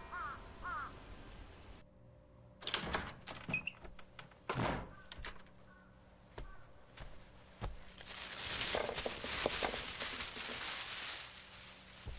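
A few short chirps, then a series of scattered knocks and thunks, and about eight seconds in a few seconds of rustling and clattering: sound effects of junk being handled.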